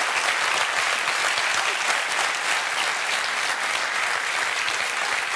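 Studio audience applauding, a dense, steady clapping from many hands.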